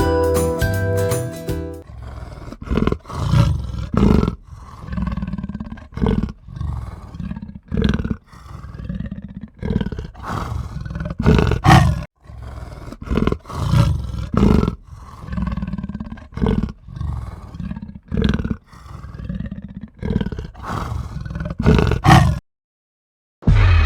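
A short chiming jingle, then a large wild animal roaring over and over, one call every second or so, until the sound cuts off near the end.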